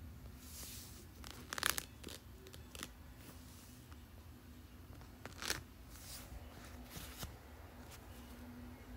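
A few brief scratchy rustling noises over a faint steady low hum. The loudest comes about one and a half seconds in and another about five and a half seconds in.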